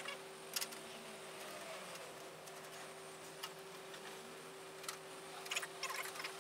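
Faint, scattered metallic clicks of bolts, nuts and washers being handled and fitted by hand to a steel truck fender, over a steady hum. The clicks come closer together near the end.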